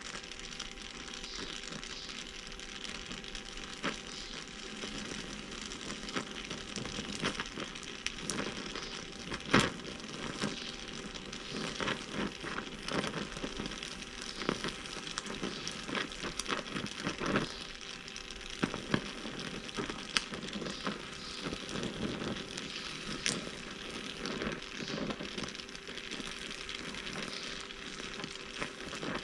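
Oxy-acetylene torch flame hissing steadily as it fusion-welds steel sheet with a steel filler rod, with irregular crackling and popping as the molten steel throws sparks.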